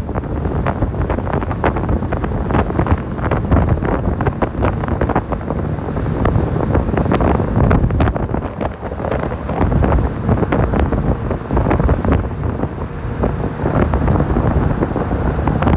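Wind buffeting the microphone of a camera filming from a moving car, with the car's road noise rumbling underneath and frequent irregular crackles from the gusts.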